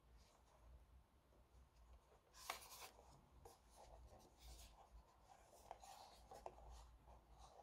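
Faint handling noise from a plastic portable CD player being turned over in the hands: fingers rubbing and gripping the casing, with scattered small clicks and one louder scrape about two and a half seconds in.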